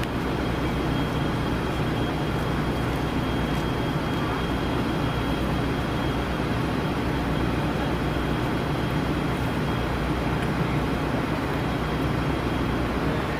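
Steady rumble of a vehicle engine idling, with a faint thin high whine that fades out about eleven seconds in.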